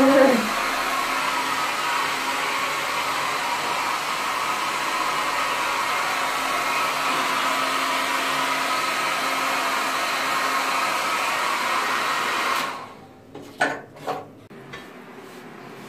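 Handheld hair dryer blowing steadily, with a faint steady whine over the rush of air. It is switched off about three-quarters of the way through, and a few light knocks follow as it is set down on a shelf.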